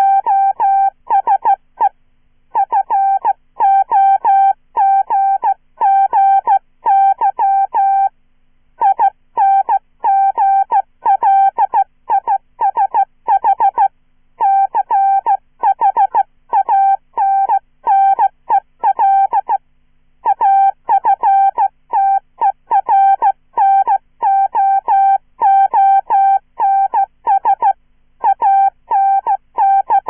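Morse code sent by hand on a straight key at about 15 words per minute, played as a chirpy synthesized tone: a loud run of short dits and longer dahs, each element starting with a quick chirp, with short pauses between words.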